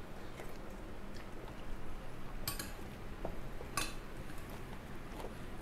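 Cutlery and dishes clinking at a table: a few light taps, with two sharper clinks about two and a half and about four seconds in.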